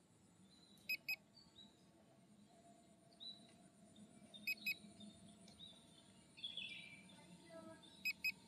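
An electronic beeper sounding a double beep, two short high beeps, three times at about three-and-a-half-second intervals. Faint bird chirps come and go between the beeps.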